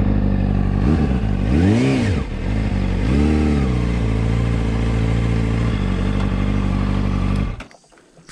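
Honda CBR600RR's inline-four engine through a Yoshimura aftermarket exhaust, idling steadily and blipped twice with the throttle, about one and three seconds in, each rev rising and falling quickly. The engine shuts off suddenly near the end.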